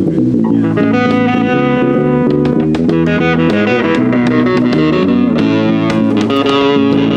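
Electric guitar and bass guitar playing a melodic rock passage, with changing sustained notes and sharp picked attacks.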